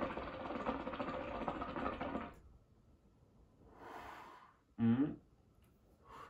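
Shisha water bubbling hard as a long pull is drawn through the hose, a rapid gurgling that stops after about two and a half seconds. A soft breathy exhale follows about a second later, then a short vocal sound near 5 s.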